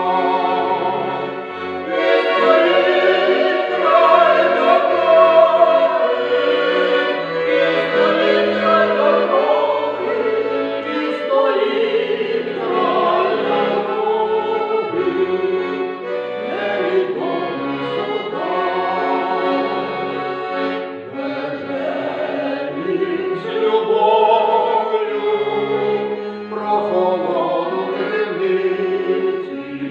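Folk choir of women's and men's voices singing a song in chorus, accompanied by an accordion.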